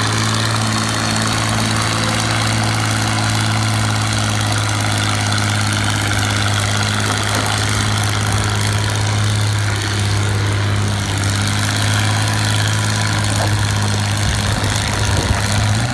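Tractor engine idling steadily, its speed starting to rise right at the end.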